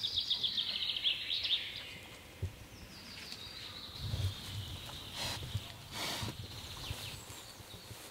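A bird's rapid trill of chirps falling in pitch during the first second and a half. Then a wild boar snuffling as it roots in leaf litter: low thuds and two short breathy snorts a little under a second apart.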